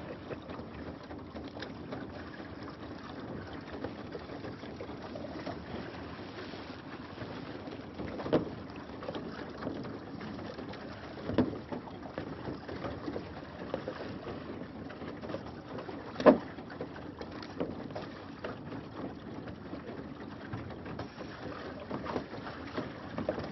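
Open-air ambience aboard a small fishing boat: a steady rush of wind and water, broken by a few sharp knocks, the loudest about two-thirds of the way through.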